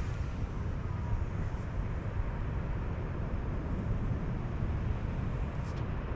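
Wind buffeting the microphone on an exposed cliff top: a steady low rumble with no rhythm or breaks.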